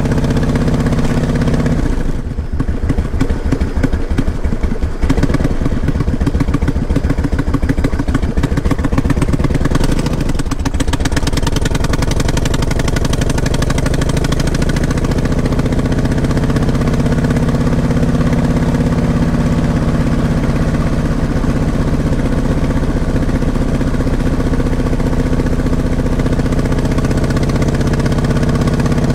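Motorcycle engine running on a ride. A couple of seconds in it drops to a low, pulsing run where each exhaust beat can be heard, then from about a third of the way through it picks up and runs steadily, its pitch rising gently.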